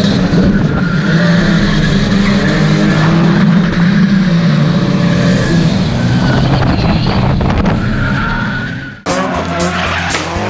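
Volvo drift cars' engines running hard at high revs, with tyres skidding and squealing through a tandem drift, the engine under the camera's hood loudest. About nine seconds in, the sound cuts abruptly to another drift clip with music over it.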